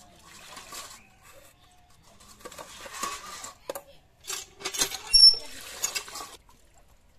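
Water splashing in three bursts as raw fish pieces are washed by hand in a steel bowl and moved into a steel pot, with metal clinks. In the second half, water from a hand pump gushes into the steel pot, with one loud knock about five seconds in.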